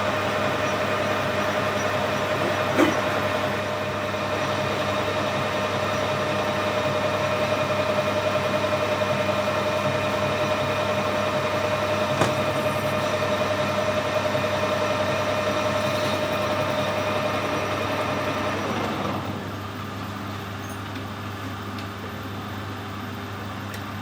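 Metal lathe turning a stainless steel bar, the tool taking a cut down to thread core size: steady running with a steady whine. About 19 seconds in, the cut ends and the whine stops, leaving the lathe running more quietly.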